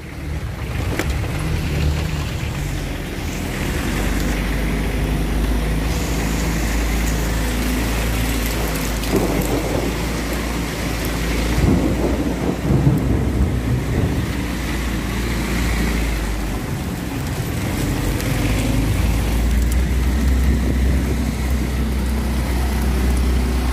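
Car driving through wet lanes in the rain, heard from inside the car: a steady low engine rumble under the hiss of tyres on the wet road and rain, with a few knocks and bumps around ten to thirteen seconds in.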